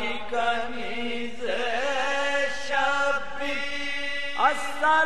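Male voice chanting a soz-style marsiya without instruments, drawing out long wavering notes that bend up and down in pitch, with a quick upward sweep about four and a half seconds in.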